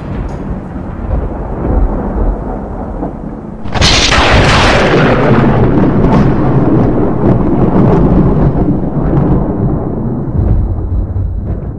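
Thunderstorm: low rumbling, then a loud thunderclap about four seconds in that rolls on for several seconds.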